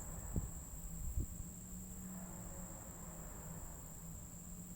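Insects trilling steadily in a high, unbroken tone in the woods, with two soft low thumps in the first second and a half.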